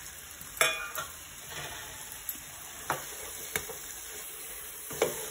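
Chicken masala sizzling in a nonstick frying pan as a spatula stirs fried onions through it, with knocks of the spatula against the pan. A ringing metal clank about half a second in is the loudest sound, and fits a steel plate being set down.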